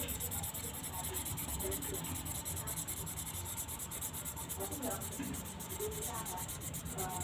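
Twin pen marker tip rubbing on paper in rapid, even back-and-forth colouring strokes.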